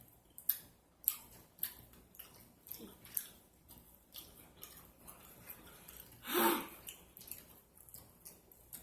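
Close-miked mouth sounds of someone eating chicken wings and fried rice: wet smacking clicks about twice a second, with one louder breathy puff about six and a half seconds in.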